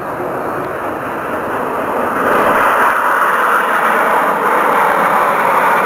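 Jet noise from a formation of jet aircraft flying over, growing louder about two seconds in and staying loud.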